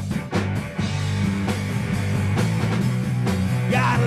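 Live rock band (electric guitar, electric bass and drum kit) playing an instrumental stretch between sung lines, with the lead vocal coming back in near the end.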